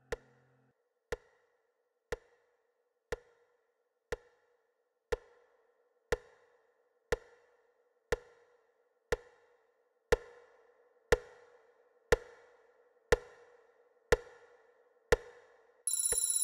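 Wall clock ticking once a second, each tick sharp with a short ring, growing louder. Just before the end a loud bell starts ringing as the clock reaches seven.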